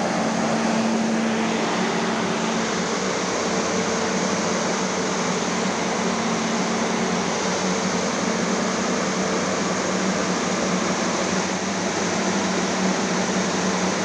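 Large blower fan of a corn-drying machine running steadily: an even rushing of air with a low, constant hum.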